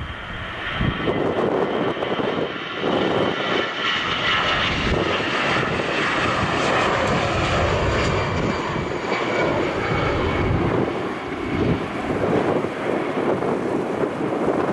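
Airbus A320 airliner taking off, its jet engines at take-off thrust: a loud roar that swells about a second in and then holds, with a high engine whine over it.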